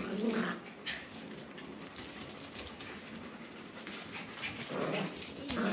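A group of dogs playing on a wooden floor: panting and scuffling paws, with short vocal sounds at the start and again near the end.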